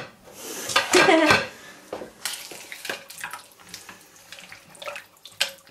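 A spoon stirring a liquid stew in a slow cooker pot: wet sloshing with irregular scrapes and knocks of the spoon against the pot.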